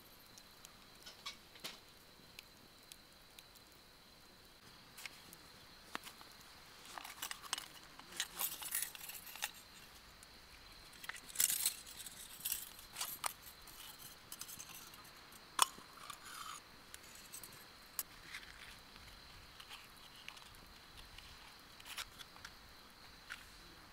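Small, sharp clicks, taps and short crackly rustles, scattered and busiest in the middle: small camp gear being handled beside a crackling wood fire. Under them runs a faint, steady, high-pitched drone.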